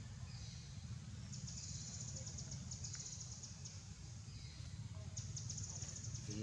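Outdoor forest ambience: a steady low rumble under two rapid, high-pitched buzzing trills. The first trill starts about a second and a half in and lasts some two seconds; the second comes near the end.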